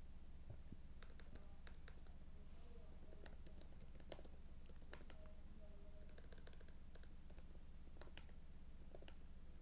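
Faint computer keyboard typing: irregular, scattered key clicks over a low steady background hum.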